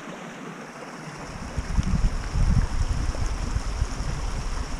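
Small brook rushing over rocks in a steady wash, with low gusts of wind buffeting the microphone for a second or so about two seconds in.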